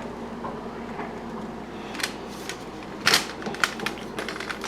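Handling clatter: scattered clicks and knocks of hard objects being moved, the loudest about three seconds in, over a faint steady low hum.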